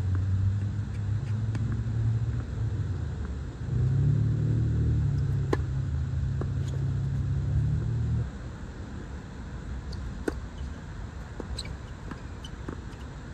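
Tennis balls struck by racquets in a doubles rally: sharp pops a few seconds apart. Under them a motor vehicle's low engine hum steps up in pitch about four seconds in and stops about eight seconds in.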